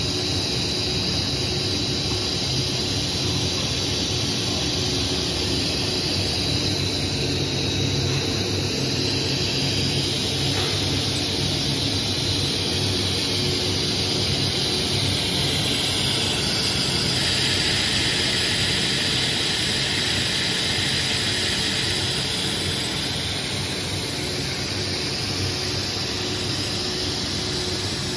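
Plastic pipe extrusion line running: a steady machine hum with a strong high hiss from its motors, blowers and pumps. The hiss grows somewhat louder about halfway through, then eases back.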